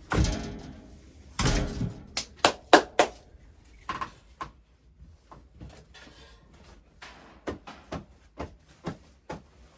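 Two heavy thuds in a small room, followed by a quick run of sharp knocks and clicks, then scattered knocks.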